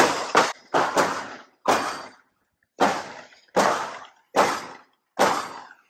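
Footsteps while walking, heard as a row of about seven sharp thuds at an even pace of roughly one a second, each dying away quickly.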